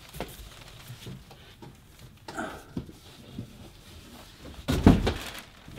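Cardboard boxes scraping and bumping as a heavy inner box is wrestled out of an outer shipping box, with scattered knocks and a louder knock and scrape near the end.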